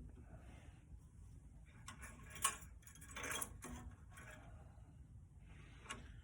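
Faint handling noises of pipe fittings being coated with thick pipe-thread sealant: a few small clicks and short scrapes, the loudest about two and a half seconds in. The sealant is thickened and hard to spread, which the worker takes for expired.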